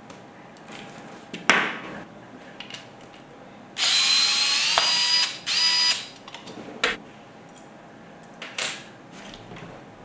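Small cordless electric screwdriver whirring in two bursts, a longer one of about a second and a half and then a short one, backing a screw out of a tape measure's plastic case. Sharp clicks and knocks of the plastic parts being handled come before and after.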